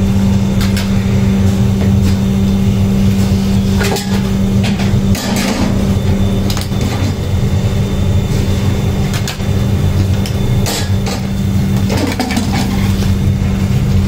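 Steady low machine hum, with a few scattered clinks and knocks of metal pots being handled.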